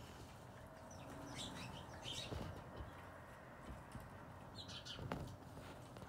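Small birds, likely sparrows, feeding at seed cups: a few short, faint chirps, with scattered light taps of beaks pecking at seed in plastic cups. The sharpest tap comes about five seconds in.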